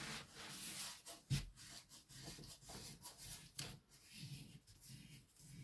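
Rustling and rubbing of a large diamond painting canvas and its plastic cover film being handled, with a light knock about a second in.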